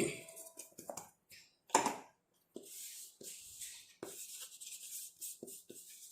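Two sharp knocks, then dry scraping and rustling with small taps, as freshly ground spice powder (dried ginger, long pepper, pepper, cloves) is emptied out of a mixer jar into a bowl.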